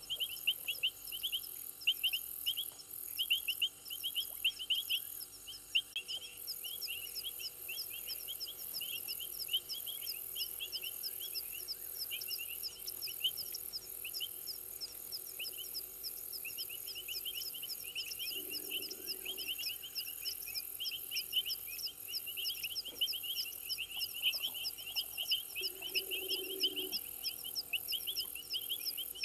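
Night chorus of frogs and insects: several kinds of fast, steady chirping and trilling calls layered over a pulsing high buzz. Two brief low sounds come through, one a little past halfway and one near the end.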